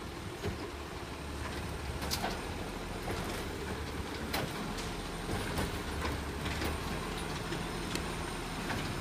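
Garbage truck's diesel engine running as the truck moves slowly and draws up beside the bins, with a few sharp clicks over it.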